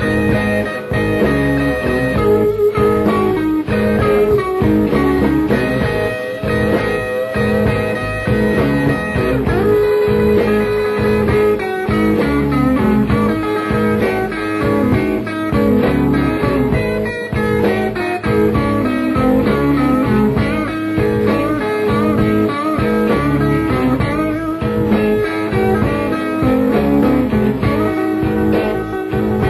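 Electric blues band playing live, an instrumental stretch led by electric guitar over a steady beat.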